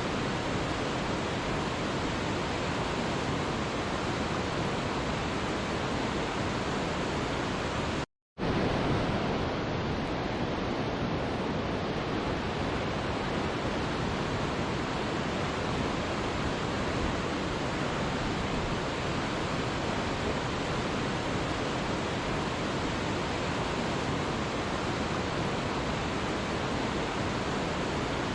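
Waterfall, a steady full rushing of falling water, cut off completely for a split second about eight seconds in before resuming unchanged.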